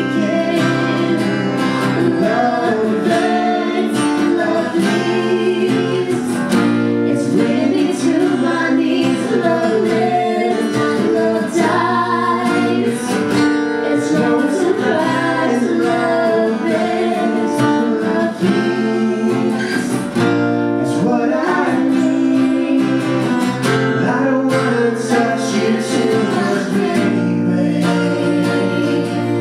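Live song: a man singing while strumming an acoustic guitar, with a woman singing along on a second microphone.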